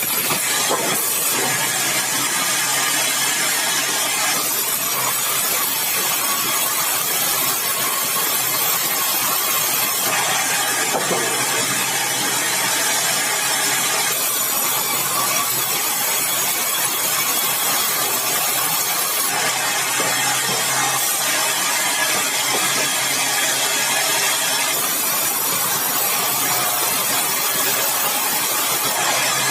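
Sawmill blade cutting through a large, dry, hard red balau log, a steady loud hissing noise over the running machine. The hiss changes in tone every few seconds as the cut goes on.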